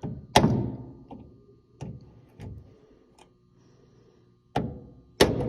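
Hammer striking a small Allen wrench held as a punch, driving the retaining pin out of a VW Beetle door-window roller: a series of sharp metal-on-metal taps at uneven intervals, the hardest about half a second in and near the end.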